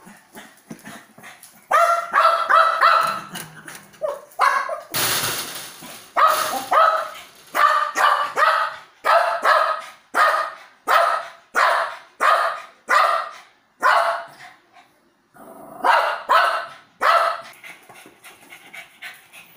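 Small long-haired dog barking excitedly in short repeated barks, about one a second, with a brief pause near the end.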